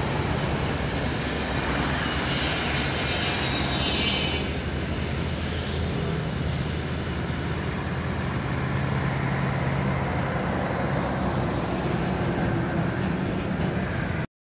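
Steady highway traffic noise from cars and heavy trucks passing below, with a low engine hum. It cuts off abruptly near the end.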